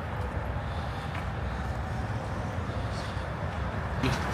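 Steady low rumble of road traffic, with no distinct single event, rising slightly near the end.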